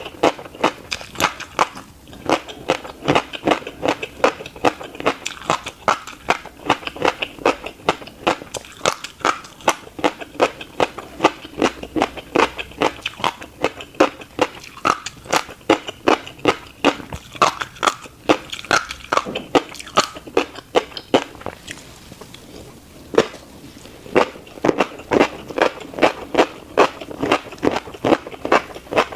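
Close-miked chewing of tiny black seeds: a fast, even crunching at about three chews a second, breaking off for a couple of seconds about three-quarters of the way through.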